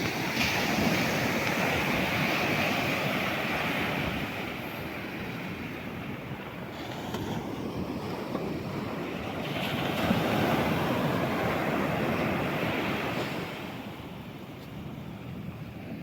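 Sea waves surging and washing in, building twice: a loud surge at the start and another about ten seconds in, with a quieter lull between.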